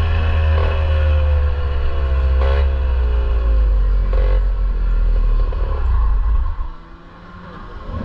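Parilla SS20 two-stroke kart engine running at low revs, its pitch sliding down as the kart slows, with a few clattery knocks; it cuts out about six and a half seconds in.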